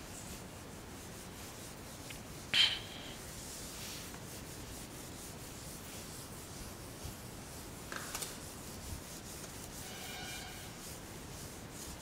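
Whiteboard eraser being rubbed across the board to wipe off marker writing: a steady soft scrubbing, with one short sharp sound, the loudest moment, about two and a half seconds in, and a brief squeak near the end.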